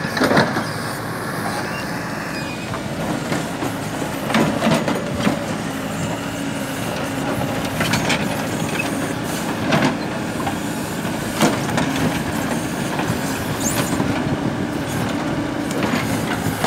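Hidromek backhoe loader's diesel engine running under hydraulic load as the backhoe bucket digs through broken asphalt, with scattered knocks and scrapes of the bucket and rubble every few seconds.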